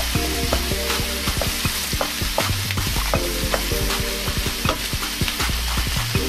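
Diced pork and onion sizzling in a frying pan while a wooden spatula stirs them, with many quick scrapes and taps of the spatula against the pan.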